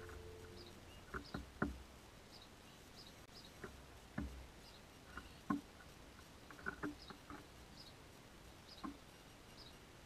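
House sparrows feeding on seed on a wooden seat close by: scattered sharp taps of pecking, some in quick pairs and clusters, with faint high bird chirps now and then.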